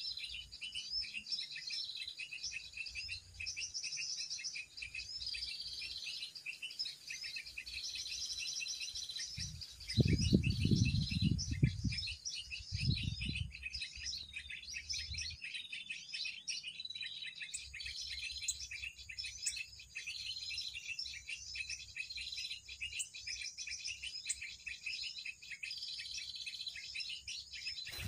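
Many small birds chirping and twittering in a dense, continuous chorus, mixed with a bird-call lure recording played to draw small birds to limed twigs. About ten seconds in, a loud low rumble of buffeting on the microphone lasts some three seconds.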